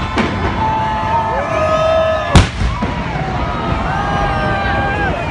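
Fireworks going off, with one loud bang about two and a half seconds in and another right at the end, over the steady sound of a crowd's voices.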